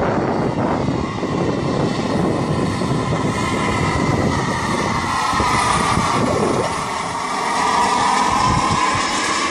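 Large scale radio-controlled helicopter in flight: a whining engine tone that bends slightly in pitch as it manoeuvres, over a rough rushing noise that eases about two-thirds of the way through.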